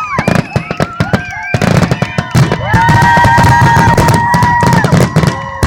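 Fireworks barrage: rapid crackling bangs with whistling shells, one whistle holding a steady pitch for a couple of seconds through the middle.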